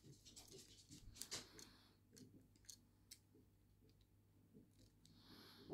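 Faint, scattered clicks and taps of hard plastic toy parts being handled and pressed together.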